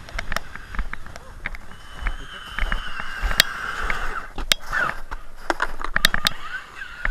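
Traxxas Summit RC truck's electric motor whining as it drives over snow, the pitch shifting with the throttle, mixed with sharp irregular crunches of footsteps in snow.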